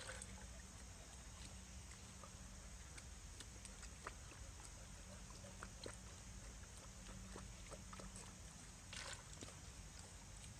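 Near silence: faint outdoor background with a few light clicks and a brief rustle about nine seconds in.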